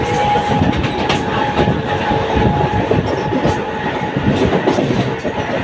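Mumbai suburban local train (electric multiple unit) running at speed, its wheels clattering over rail joints in irregular clicks over a loud rumble, with a steady whine throughout.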